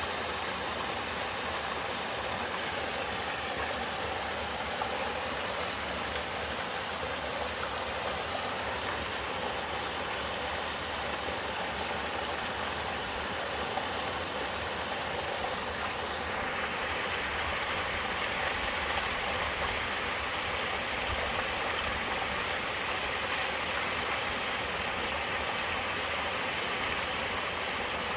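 Small two-tier mountain waterfall splashing and rushing steadily. About sixteen seconds in, the rush becomes brighter and fuller.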